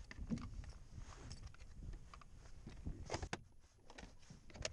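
Hands rummaging in a plastic tackle box: scattered small clicks and knocks of plastic boxes and tackle being moved, with a few sharper clicks about three seconds in, over a low rumble.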